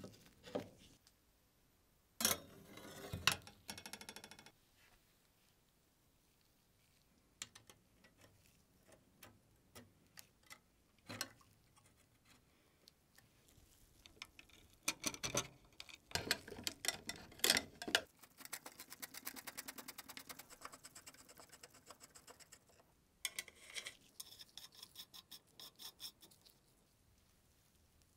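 Small metal parts of a lever guillotine cutter being screwed and fitted together by hand with a screwdriver. There are scattered metallic clicks and taps, plus two runs of fast, even clicking past the middle and near the end, typical of a tool turning a screw.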